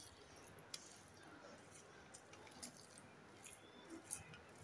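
Near silence with soft, faint sounds of cooked rice being mixed by hand with mashed pointed gourd in a steel bowl, and a few faint ticks.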